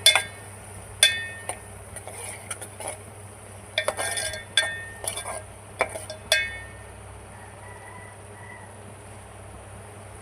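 Metal utensils clinking and knocking against pots and dishes: about a dozen sharp, ringing clinks over the first six and a half seconds, then only a steady low hum.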